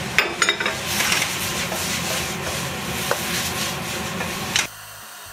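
Wooden spatula stirring and scraping chopped vegetables and tomato frying in a wok, with a steady sizzle and a few sharp knocks against the pan about half a second in. The sound cuts off suddenly near the end.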